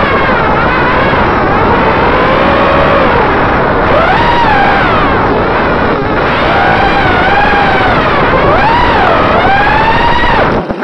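Racing quadcopter's EMAX RS2205 brushless motors and propellers whining, the pitch rising and falling again and again with the throttle. The sound cuts off suddenly just before the end.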